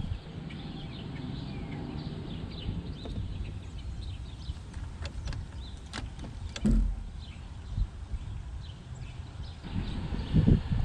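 A few scattered light clicks and knocks of hand tools and metal parts being handled at the engine, over a steady low background rumble.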